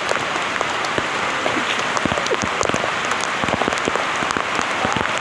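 Heavy rain falling without let-up: a dense steady hiss with many separate drops pattering close by.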